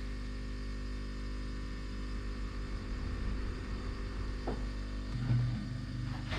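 Steady electrical mains hum, with faint handling noises and a single small click about four and a half seconds in.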